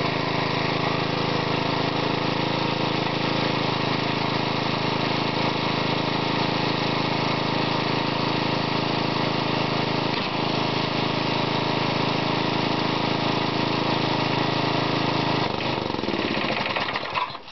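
Small Briggs & Stratton lawnmower engine driving a homemade air compressor, running steadily. About two seconds before the end the sound turns to a rapid crackling, with smoke billowing, then stops suddenly.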